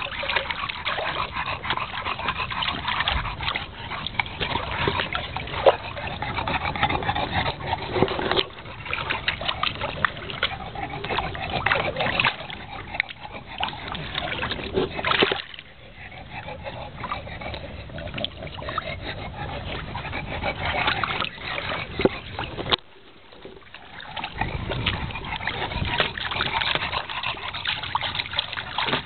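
Bulldogs splashing and paddling in the shallow water of a plastic kiddie pool, with irregular splashing and sloshing. Brief lulls come about halfway through and again about three-quarters of the way in.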